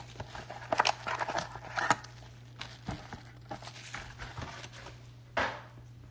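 Handling of a Panini Obsidian football card box: the cardboard box opened and its sealed foil pack taken out and set down, giving light knocks and rustles, busiest in the first two seconds, with a louder rustle near the end. A steady low hum runs underneath.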